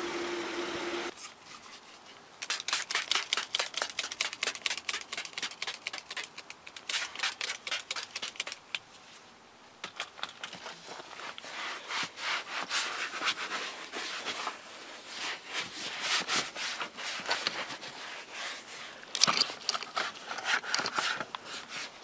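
A gloved hand rubbing leather conditioner into a black leather car seat: quick back-and-forth scrubbing strokes, several a second, in bursts with brief pauses.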